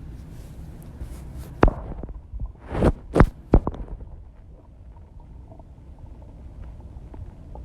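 Stomach growling, recorded close against the body: a steady low rumble. A cluster of sharp gurgles and pops, the loudest sounds here, comes between about one and a half and three and a half seconds in.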